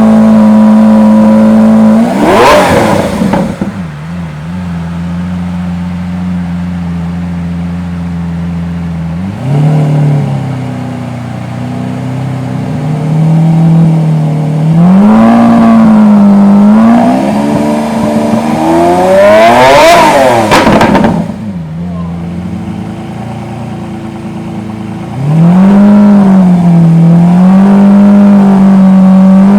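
Lamborghini Aventador's V12 idling, then blipped sharply twice, once about two seconds in and again near two-thirds through, each rev rising fast and dropping back. Between the big blips the idle pitch rises and wavers with lighter throttle.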